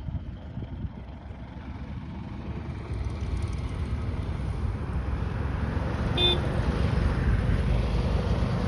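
Low, steady rumble that grows louder, with one brief horn toot about six seconds in.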